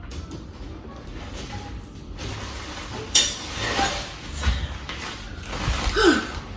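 Tent assembly handling noise: the tent's nylon fabric rustles while the poles slide and knock, with a sharp clack about three seconds in.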